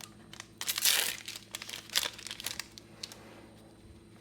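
Crinkly plastic booster-pack wrapper being handled. The crinkling is loudest about a second in, with a sharp crackle near two seconds and a few lighter clicks after.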